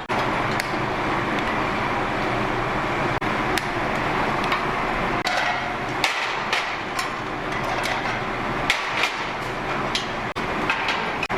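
Irregular sharp knocks and clicks of kitchen work, bunched together in the second half, over a steady rushing noise.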